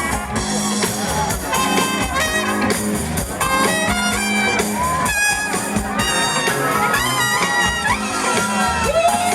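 Live soul band playing an instrumental passage, the horn section of trumpet and saxophone playing short riffs over the rhythm section.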